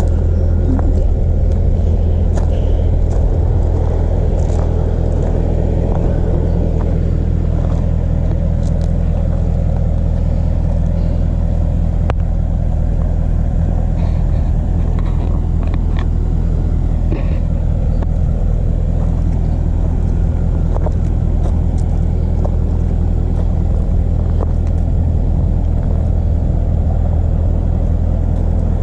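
Mercedes-AMG C63 engine and exhaust, with the secondary cats and resonators deleted, running steadily at an unchanging low note with no revving.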